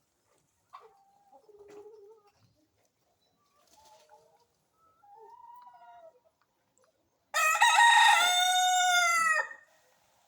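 Village chickens: a few soft clucking calls, then a rooster crows once, loud, for about two seconds, falling in pitch at the end.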